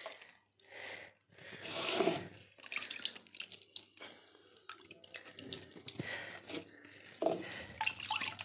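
Water sprinkled by hand onto potted plants, splashing and dripping on the leaves and soil in irregular bursts, the biggest about two seconds in and another cluster near the end.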